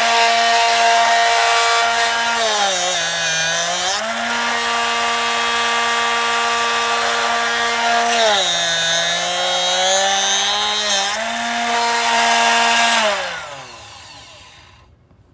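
Electric drill running at speed, its motor pitch dropping twice as the freshly sharpened bit cuts into wood. Near the end the motor winds down to a stop.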